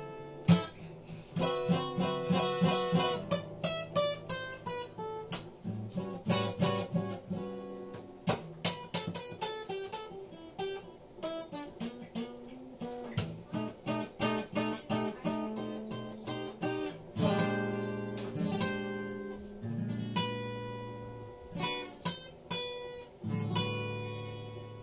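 Acoustic guitar being played: quick runs of picked single notes, then a few strummed chords left to ring in the last third.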